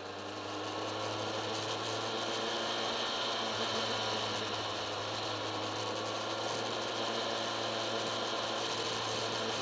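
Kawasaki ZX-10R's inline-four engine running steadily under wind noise, heard from a camera mounted on the bike. It fades in over the first second, then holds a steady low hum.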